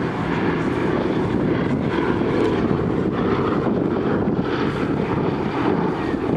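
Boeing B-17G Flying Fortress running on its four Wright R-1820 Cyclone radial engines: a steady, dense, low propeller-engine rumble.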